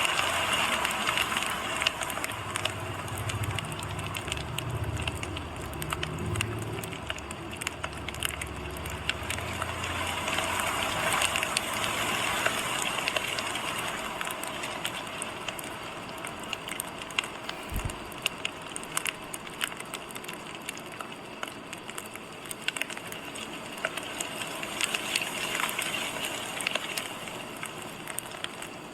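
Crackling fire: a steady hiss scattered with many small, irregular pops and snaps. A low rumble runs under it for the first several seconds, and there is a single low thump about 18 seconds in.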